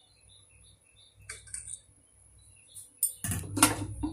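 Aluminium pressure cooker lid put on and closed: two sudden metallic clanks about three seconds in, after a quiet stretch with faint high chirps.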